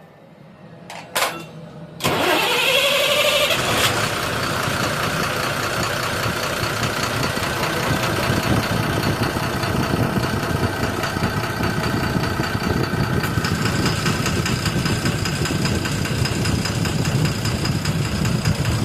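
12M FE car engine starting: a couple of clicks about a second in, then it catches at about two seconds with a brief rising rev. It then settles into a steady idle. This is the engine being checked for a knocking problem.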